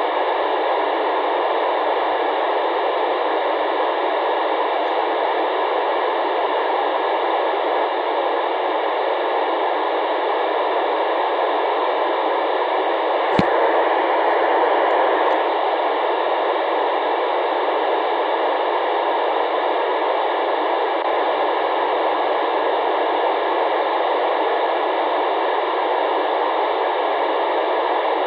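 Radio receiver hiss with the squelch open, listening for the SO-50 amateur satellite's downlink during its pass, with no voices coming through. The hiss is steady and narrow, like a small radio speaker, with a single click about halfway.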